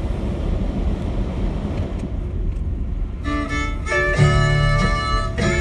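A steady low noise for about three seconds, then an instrumental country-song intro in 3/4 time comes in, with held higher notes over low bass notes.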